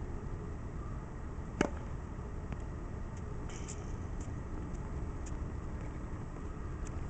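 A single sharp pop of a tennis ball being struck about a second and a half in, over a steady low outdoor rumble, followed by a few faint light ticks.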